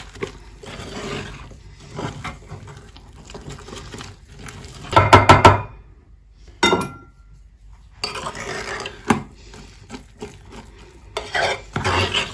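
A metal spoon stirring and scraping a stiff cake batter in a glass bowl. About five seconds in there is a loud clatter of metal clinking on glass, and just after it a single clink that rings briefly.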